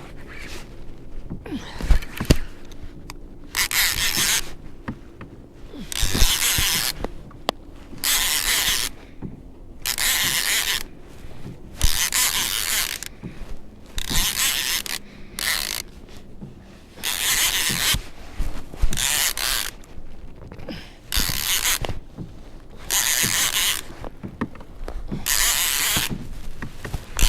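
Fishing reel cranked in repeated spurts of about a second each, a rasping, ratcheting gear sound, as a hooked copper rockfish is reeled up.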